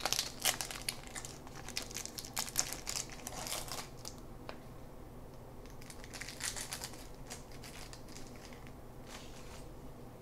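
A baseball card pack's wrapper being torn open and crinkled by hand: dense crackling over the first four seconds, another burst about six to seven and a half seconds in, and scattered soft ticks after that.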